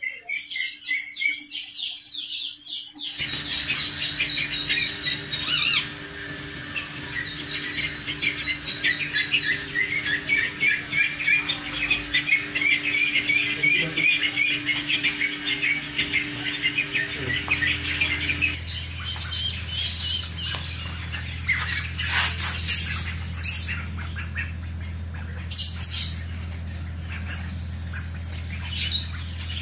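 Ducklings peeping, a dense run of rapid high chirps over a steady low hum. About 18 seconds in, the peeping thins to scattered calls.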